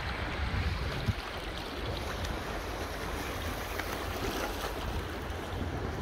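Wind blowing on the microphone with a steady low rumble, over small sea waves washing against shore rocks.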